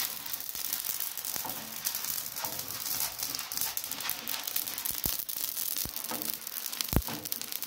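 Grain dry-roasting in a large iron pan over a wood fire, hissing and crackling as it is stirred and scraped with a long-handled ladle. A few dull thumps near the end, the loudest about seven seconds in.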